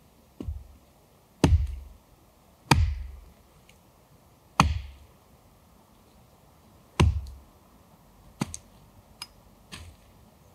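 Heavy blows on wood: five strong strikes with a deep thud, irregularly a second or two apart, then three lighter knocks near the end.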